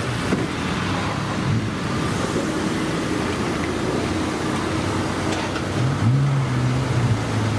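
An engine running steadily over a constant rushing noise; its pitch rises and holds higher about six seconds in.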